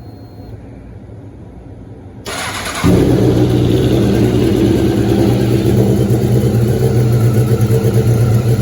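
Honda CBR954RR's inline-four engine cranked on the electric starter for about half a second, catching nearly three seconds in and then idling steadily and loudly, just refilled with fresh oil and a new filter.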